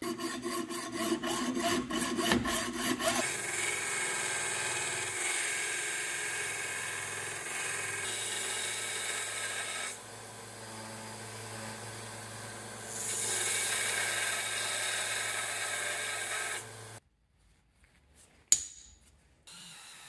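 Hacksaw cutting the sprue off a brass casting in quick strokes for about three seconds. Then a narrow-belt bench sander runs with a steady hum, grinding louder while the brass piece is held against the belt, easing for a few seconds in the middle, and stopping a few seconds before the end. A sharp click follows, and a rotary tool starts up faintly near the end.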